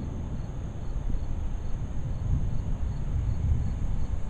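Distant thunder rolling as an uneven low rumble, with crickets chirping faintly and regularly, about twice a second, behind it.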